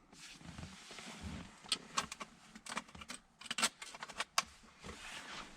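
Transmission fluid being poured from a plastic bottle into the top of a G56 manual transmission, a faint trickling hiss broken by several sharp clicks and taps of the bottle and tools.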